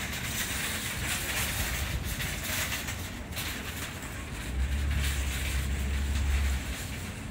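Wind rushing over the phone's microphone outdoors, with a heavier low rumble for about two seconds past the middle.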